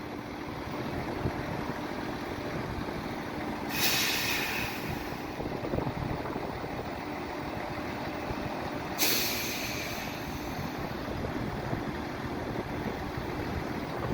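Diesel train running at the station with a steady rumble, broken twice by short sharp hisses of compressed air from its brakes, about four seconds in and again about nine seconds in.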